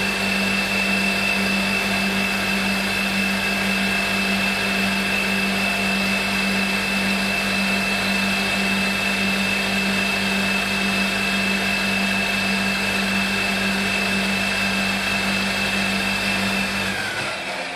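CNC milling machine spindle running at a steady speed with a constant high whine, feeding a small sharp cutter slowly into a headphone cable plug. Near the end it winds down, the pitch falling as the spindle slows.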